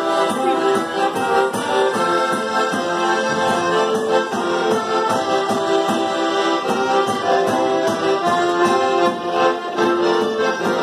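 Piano accordion playing a lively Polish folk tune, with a tambourine keeping a steady beat of regular taps.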